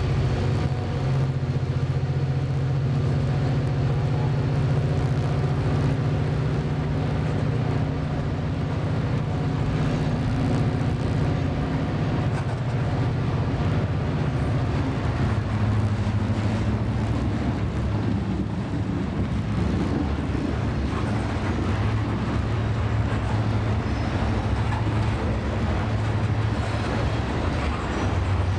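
Freight train of ballast hopper cars rolling past close by: a steady, loud rumble of steel wheels on the rails.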